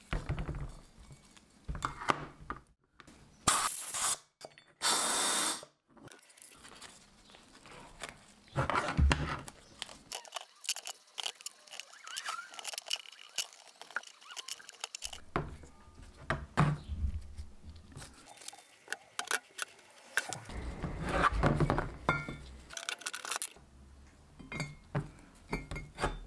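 Hand work on a rusty VW T25 Syncro brake caliper on a bench: a steel pick scraping in the piston bore to lift out the piston seal, and irregular knocks and clunks as the caliper is handled and set down. A few short, loud bursts of noise come about three to five seconds in.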